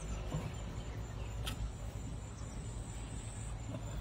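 Outdoor ambience: a steady high insect trill over a low rumble, with one sharp click about a second and a half in.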